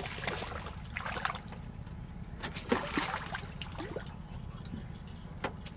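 Water splashing and trickling, with scattered short clicks, as a hooked yellow bagrid catfish is drawn out of the water.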